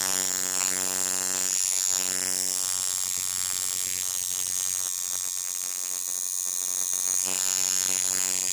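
Tattoo machine buzzing steadily while its needle works on the outline of a tattoo on skin.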